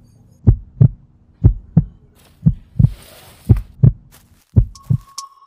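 Heartbeat sound effect: five double lub-dub thumps, about one beat a second. Near the end a steady high electronic tone comes in.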